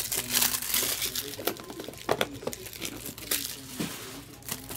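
Plastic wrappers of trading card boxes and packs crinkling and tearing as they are ripped open, with irregular sharp crackles and clicks.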